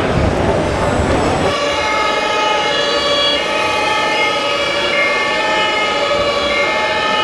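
Siren tones from RC model fire trucks' sound modules: several steady horn-like pitches that switch back and forth, starting about a second and a half in after a rumbling hall noise.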